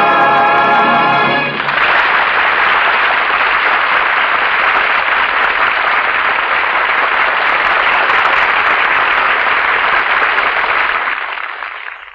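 An orchestra and choir hold a final chord that ends about a second and a half in. An audience then applauds steadily, and the applause fades out near the end.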